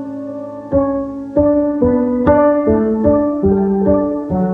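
Music: a piano playing a slow melody, about two notes a second, with the lower notes stepping down in pitch in the second half.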